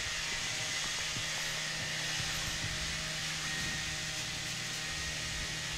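Steady background noise: an even hiss with a faint low hum and no distinct events.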